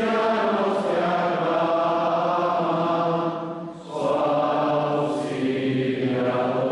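Congregation singing a slow hymn together in church, holding long notes in two phrases with a short break for breath just under four seconds in.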